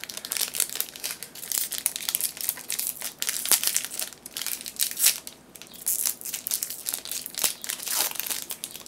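Plastic packaging being handled, crinkling and crumpling in an irregular run of crackles.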